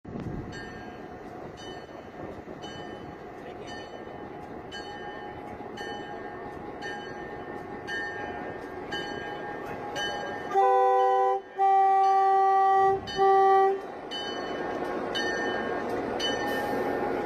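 Diesel switching locomotive rolling slowly by, its bell ringing about once a second over the rumble of engine and wheels, which grows louder toward the end. About ten seconds in, its multi-chime horn sounds three blasts, two longer and one short; these are the loudest sounds.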